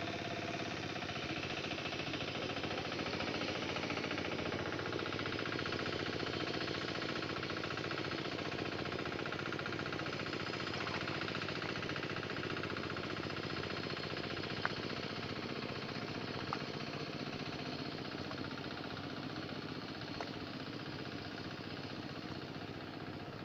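A small engine running steadily with a fast, even pulse, joined by two brief sharp clicks a little past the middle.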